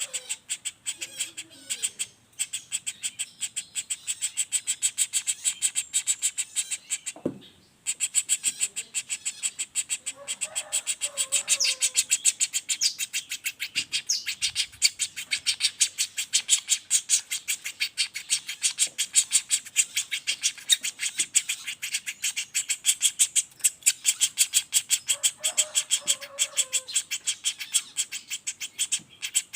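Young flameback woodpecker giving a rapid rattling roll call, short high notes repeated in quick succession without pause, broken off twice briefly.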